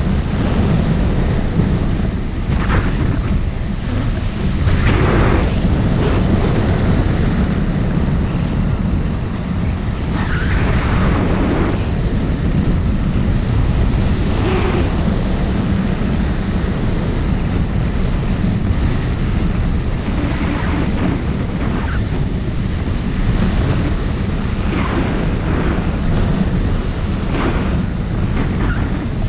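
Wind rushing over the microphone of a camera mounted on a hang glider's wing in flight: a loud, steady roar of airflow buffeting the mic, swelling in gusts every few seconds.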